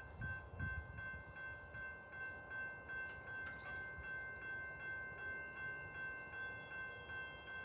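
Railroad grade-crossing warning bell ringing in an even rhythm, about two strikes a second. A low rumble sits underneath in the first second.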